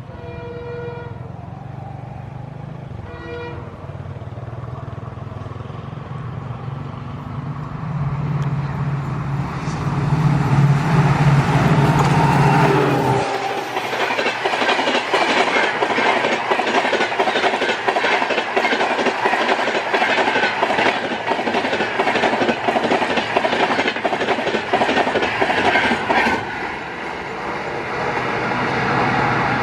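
A WDP-4D diesel locomotive sounds its horn in two short blasts as it approaches, and its engine grows louder. From about 13 seconds in, the train's coaches rush past at high speed: a dense, rapid clatter of wheels over rail joints with wind noise. This eases a few seconds before the end.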